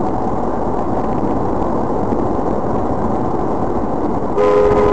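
Steady driving noise from a moving car, picked up by its dash camera. Near the end a steady two-note tone sounds for about a second.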